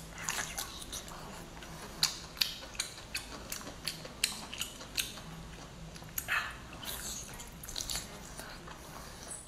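Mouth sounds of biting into and chewing a cooked octopus head: irregular wet clicks and smacks, with one longer squelch about six seconds in.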